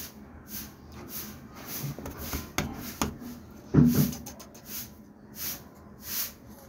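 Kitten hissing in short breathy puffs, repeating about once or twice a second. A couple of sharp clicks come just before a louder dull thump about four seconds in.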